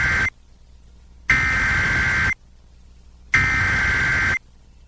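Emergency Alert System SAME header data bursts: the end of one burst, then two more, each about a second long with about a second between them. This is the digital header, sent three times, that opens the Flash Flood Warning.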